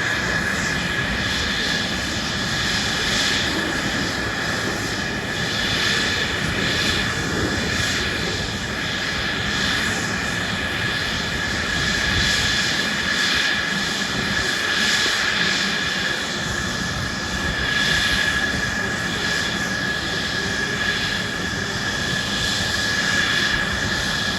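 Aircraft engine running steadily for the whole stretch: an even rushing noise with a steady high-pitched whine over it.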